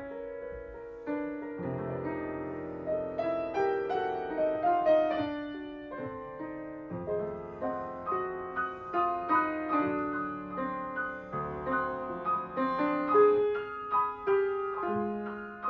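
Grand piano playing a solo passage of classical chamber music, a stream of notes and chords that swells and falls in loudness, while the viola rests.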